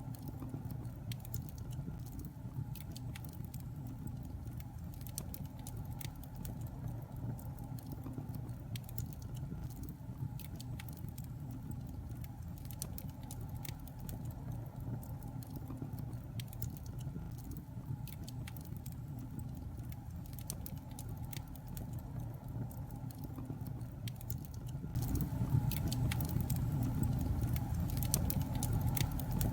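Wood fire burning in a fireplace: a steady low rumble of flames with frequent small crackles and pops scattered throughout. About 25 seconds in, the fire abruptly becomes louder and fuller.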